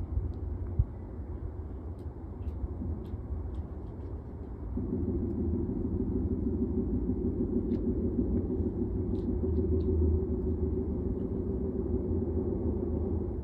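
A low, steady rumbling drone coming from the sky, which grows louder and fuller about five seconds in and holds, with a few faint clicks.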